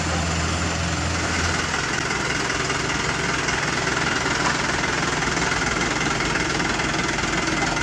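Heavy diesel engine of construction machinery running steadily, with a deep low hum that drops away a little under two seconds in.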